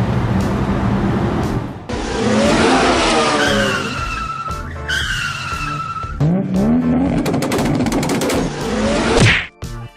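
Cartoon vehicle sound effects: a steady engine-like rumble, then a series of tyre-squeal whistles and rising and falling swooshing sweeps, with music underneath.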